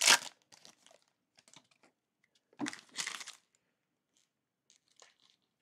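Foil wrapper of a football trading-card pack crinkling as it is torn open, then light ticks and taps of the cards being handled, with a second short burst of crinkling about two and a half seconds in.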